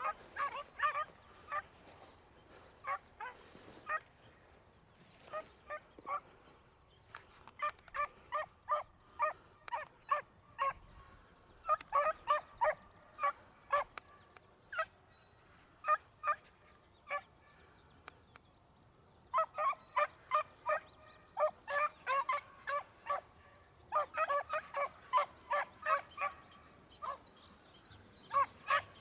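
A pack of beagles baying on a rabbit's track: many short, high cries in bunches, with a couple of brief lulls when the pack goes quiet before picking up again.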